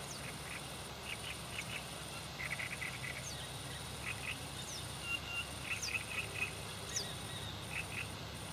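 Small birds calling with short chirps and quick high whistled notes, over a steady high-pitched insect trill that breaks off briefly now and then.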